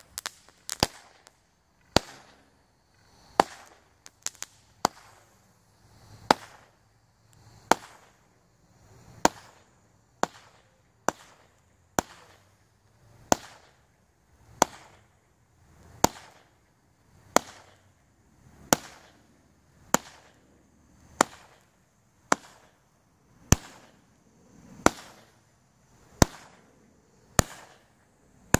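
Lesli Monkey Business fireworks cake firing shot after shot, about one every second and a half. Each shot is a short hiss from the climbing sparkling tail, building to a sharp bang.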